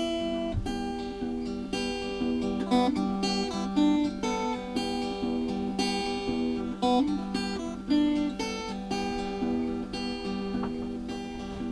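Background music: acoustic guitar plucking and strumming chords in a steady rhythm.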